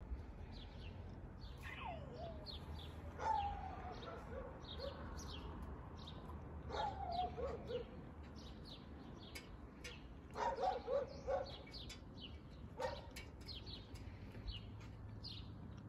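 A dog barking at intervals, with small birds chirping throughout and a low steady hum underneath.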